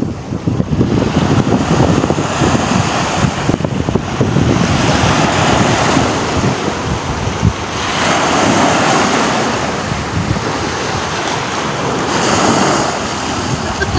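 Small sea waves breaking in the shallows and washing up the sand, swelling and fading several times. Wind buffets the microphone throughout.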